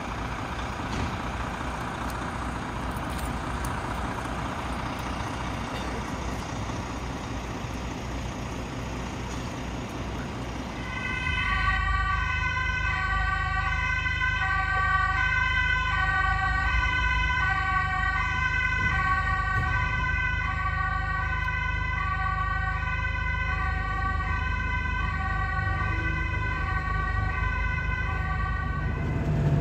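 Two-tone emergency siren alternating between a high and a low note about every half second. It comes in about 11 seconds in, over a vehicle engine's low running. Before that there is steady street noise.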